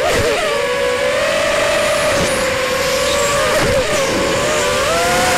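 The brushless motors and 5x4.5 propellers of a ZMR250 racing quadcopter (T-Motor 1806 2300kv), heard close up from its onboard camera: a steady buzzing whine of several close tones. The pitches wobble and dip with throttle changes about a quarter second in and again near four seconds in.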